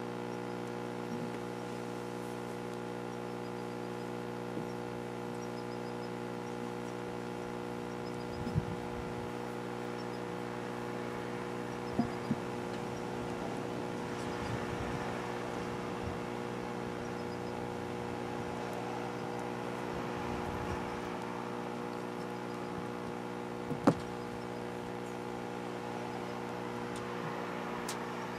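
A steady hum runs throughout, with a few short knocks over it; the sharpest knock comes about three-quarters of the way through.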